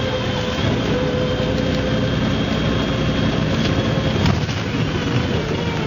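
MCW Metrobus's Cummins diesel engine running steadily, with a steady high whine over the engine note and a single click about four seconds in.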